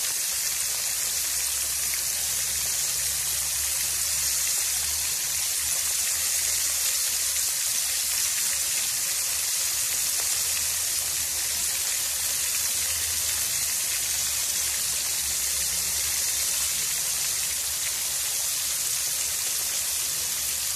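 Flour-coated chicken pieces deep-frying in hot oil in a wok: a steady, even sizzle.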